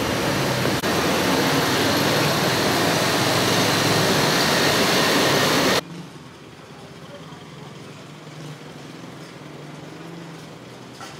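Loud, steady roar of street traffic noise that cuts off abruptly about six seconds in, leaving a much quieter street background with a low hum.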